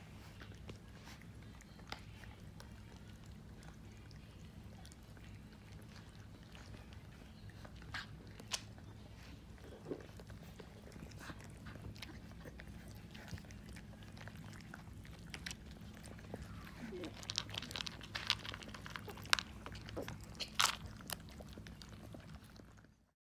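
Boxer puppies crunching dry kibble, with sharp clicks and clatters of kibble against a plastic feeder bowl, getting busier and louder toward the end, over a steady low hum.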